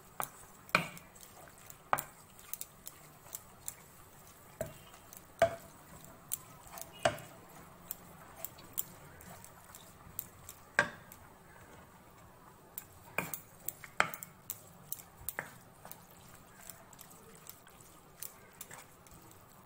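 A spatula scraping and knocking against a pan while minced mutton is stirred and sautéed, with irregular clacks every second or so.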